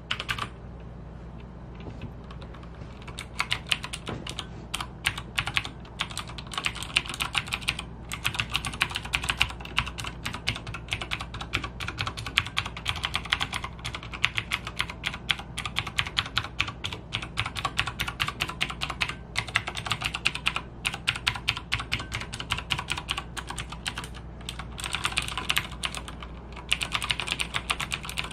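Typing on a Logitech G610 mechanical keyboard with clicky Cherry MX Blue switches: a dense, fast run of keystrokes that starts about three seconds in after a short pause, with brief lulls near the end.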